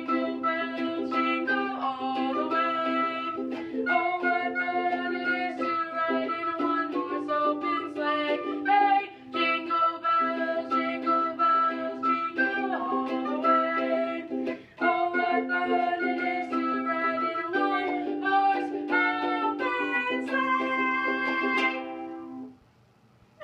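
Ukulele strumming chords under a recorder playing the tune, which stops about 22 seconds in.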